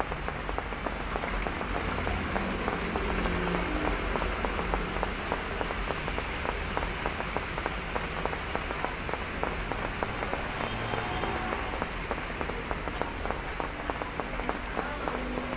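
Steady heavy typhoon rain pattering on the roof and the wet ground, thick with the tapping of individual drops.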